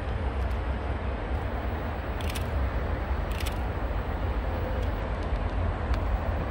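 Outdoor railway station ambience: a steady low rumble under a constant hiss, with two short crackles about two and three and a half seconds in.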